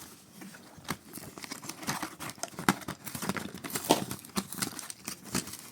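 Plastic blister packaging and cardboard card of a boxed diecast toy car being handled: irregular crinkling, scratching and sharp clicks.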